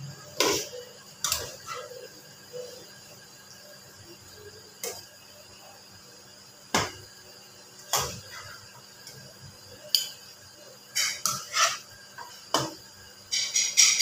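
A cooking utensil knocking and scraping against a frying pan as macaroni is stirred, in single clacks a second or two apart, then a quicker run of scraping and clatter near the end.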